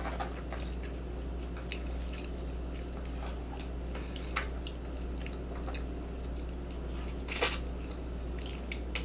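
Close-miked chewing and mouth clicks of a person eating, with one louder crunch-like burst about seven and a half seconds in, over a steady low hum.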